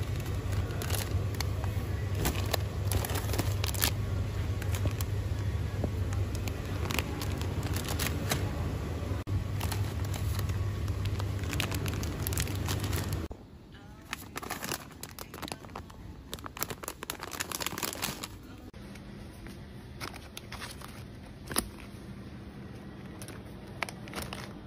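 Plastic food packaging crinkling and crackling as it is picked up and handled, over a steady low hum. About halfway through the hum cuts out abruptly and the crinkling goes on more quietly.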